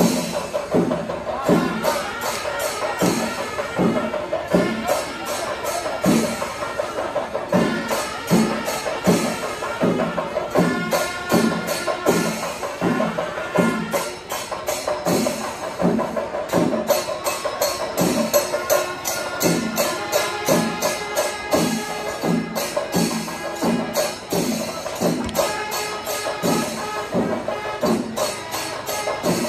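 Live Kerala temple festival percussion ensemble: drums beating a steady pulse of about two strokes a second under rapid, continuous clashing of hand cymbals, with held tones running over the rhythm.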